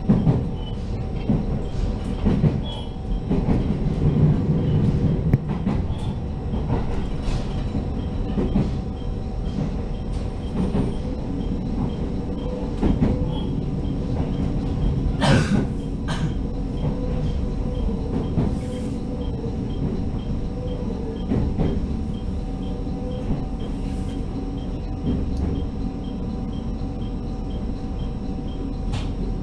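Inside the cabin of a JR Hokkaido H100 "DECMO" diesel-electric railcar under way: the steady rumble of the running gear and wheels on the track, with a faint steady hum. A single sharp knock comes about halfway through.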